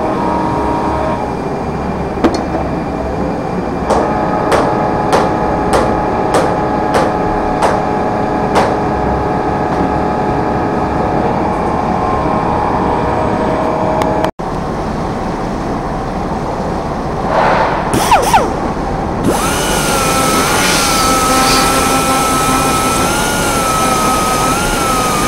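Steady workshop hum with a run of light ticks. Then, from about three-quarters of the way in, a handheld rotary grinder runs against a steel pruning-shears blade: a continuous high whine over hiss whose pitch wavers as the wheel is pressed into the metal.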